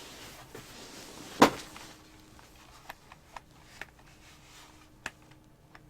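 Handling noise from an unpowered plastic electronic keyboard and its cardboard box: a brief rustle, then a single sharp knock about a second and a half in, followed by a few faint clicks.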